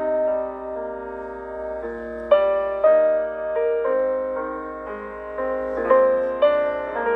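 A Samsung Galaxy A71 5G ringtone playing: a gentle piano-like melody of single struck notes, a new note every half second to a second, each ringing and fading before the next.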